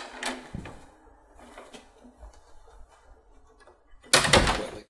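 A door is opened with a few clicks and a low knock, then about four seconds in it shuts with one loud clunk.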